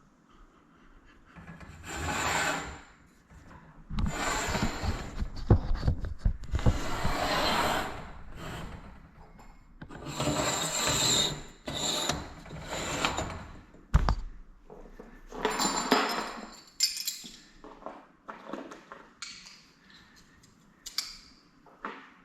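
Metal hardware of a garage door torsion spring assembly being worked by hand: a series of scraping, rubbing strokes about a second long, with a few sharp knocks.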